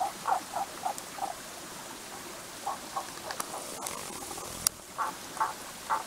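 Tago's brown frogs calling: short croaks, about three a second, in bouts near the start, around the middle and near the end, over the steady rush of a small stream. A few sharp clicks sound in the middle.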